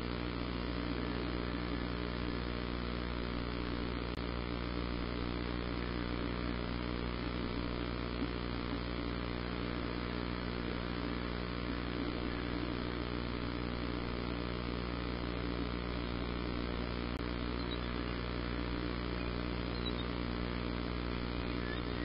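A steady hum with a hiss over it, level and unchanging, with no bird calls standing out.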